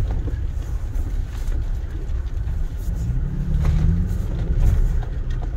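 Toyota Tacoma TRD Pro's 3.5-litre V6 running at low speed on a dirt track, heard from inside the cab. The engine note rises briefly about three seconds in and settles again, with a few light knocks over the rough ground.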